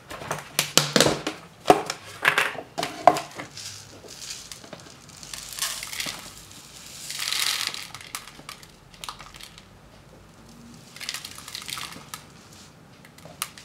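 Dry quick-cooking oats poured from a cardboard canister into a plastic measuring jug, a rushing hiss that swells about seven seconds in and comes back more softly near the end. Before it come several knocks and clatters as the canister and jug are picked up and handled.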